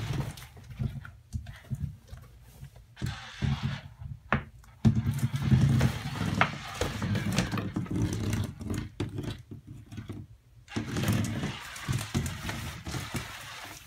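Puppy scrambling through a nylon pop-up play tunnel: irregular rustling of the fabric with scratches and light knocks, loudest about five to eight seconds in.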